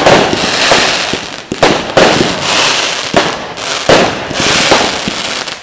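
Fireworks going off: about five sharp bangs, each followed by a fading rushing wash, with crackling between them.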